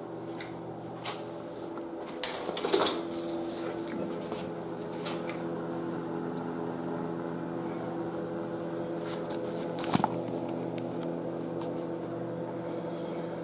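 A steady machine hum made of several fixed tones, with a few knocks and a clatter about two to three seconds in as a food bowl is set down, and a single sharp knock about ten seconds in.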